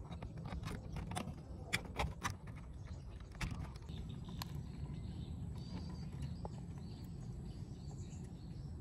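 A run of small, sharp clicks and taps from a plastic wire connector and its leads being handled and pushed onto a circuit-board header, over a steady low hum. Faint bird chirps sound in the background in the second half.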